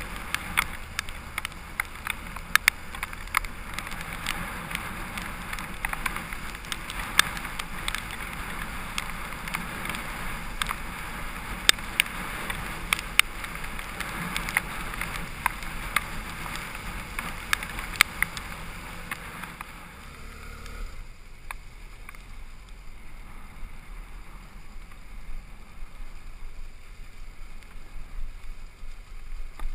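BMW F800GS motorcycle riding on a wet gravel track, heard through a helmet-mounted camera: a steady rush of wind and tyre noise with frequent sharp ticks. It turns quieter about 21 seconds in.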